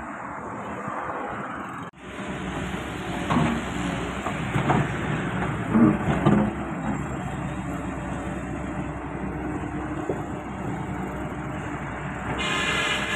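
Excavator engine running steadily under load, with scattered knocks and clatter from the digging and a high whine near the end.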